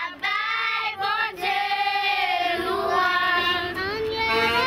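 A group of children singing together in unison, holding long notes that glide up and down.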